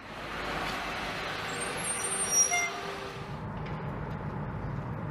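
Heavy military truck: a hissing rush with a brief high squeal about two seconds in, then the low, steady sound of its engine running.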